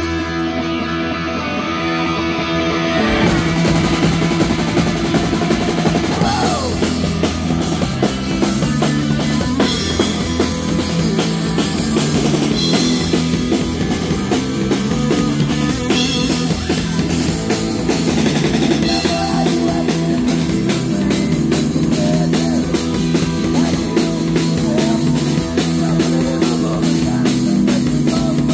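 Live punk-rock band playing loud through a club PA: held electric guitar and bass notes, then the drum kit and full band come in about three seconds in and play on steadily.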